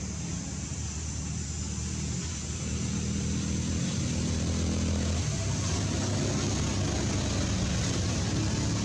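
A motor engine running steadily, a low hum that shifts in pitch a couple of times and grows a little louder about three seconds in.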